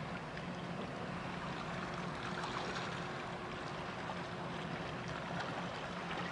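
Steady low engine hum of a boat on the water, mixed with an even wash of water and wind noise and a few small ticks.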